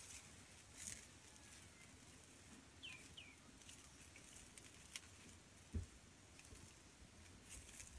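Near silence: faint hiss with a few scattered light ticks, two short high falling chirps about three seconds in, and one soft low thump a little before six seconds.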